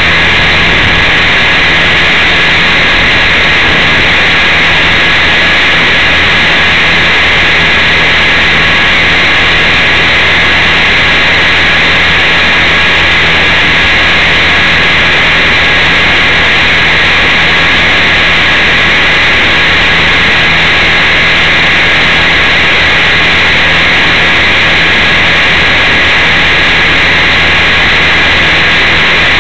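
Align T-Rex 450 electric R/C helicopter's rotor and motor, picked up by a camera mounted on the helicopter itself: a loud, unbroken hissing drone with a low steady hum beneath it, as the helicopter hovers and flies.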